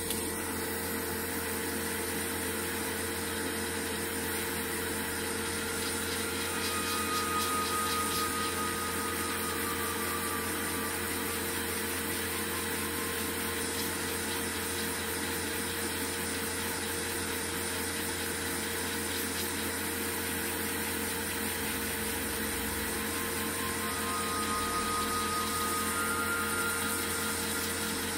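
Hot-air rework gun blowing steadily, a constant hiss with a fixed fan hum, its nozzle held against the phone's back cover to soften the adhesive before the back is pried off.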